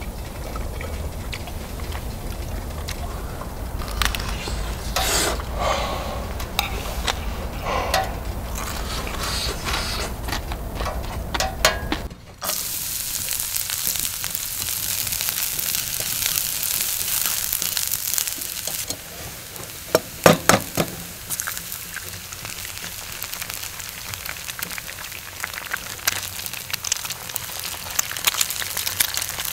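For about the first twelve seconds there is clattering and knocking over a low hum. After a sudden change comes a steady high sizzle of food frying on a hot surface, with a quick run of sharp clicks partway through.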